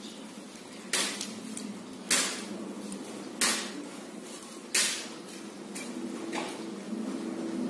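Close-up eating sounds: four sharp crunches or knocks a little over a second apart, then fainter ones near the end, over a steady low hum.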